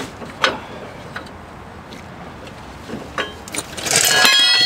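A few light metallic clicks, then near the end a clatter of metal tools with a brief high ringing as a long steel pry bar is laid down on the asphalt among other tools.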